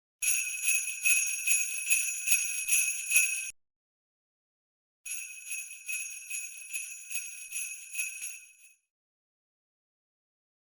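Jingle bells shaken in a steady rhythm, about three shakes a second, in two bursts: a loud one, then after a short gap a quieter one that fades out.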